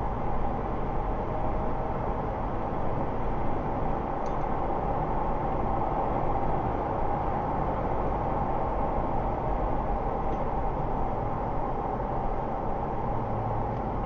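Car driving at a steady speed: constant engine and tyre road noise with no change through the stretch.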